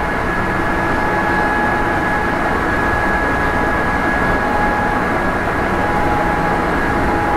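Sanyo 5000 series electric train running between stations, heard from inside motor car KuMoHa 5010 with its Mitsubishi MB-3020 traction motors: a steady rumble of wheels and running gear with a steady whine held at one pitch.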